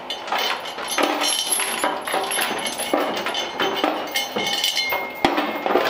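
Metal parts and hand tools clinking and knocking in quick, irregular strikes as hardware is worked out of the engine mounting by hand, with brief metallic rings and a sharper knock about five seconds in.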